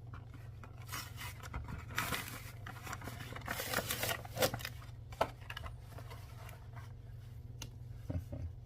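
Action-figure box and its plastic packaging being opened by hand: a run of rustles, rips and scrapes, busiest in the middle, with a couple of sharp clicks, over a low steady hum.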